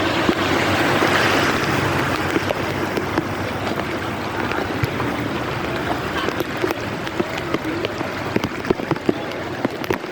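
Heavy rain falling: a steady hiss of water, with many sharp drops and splashes.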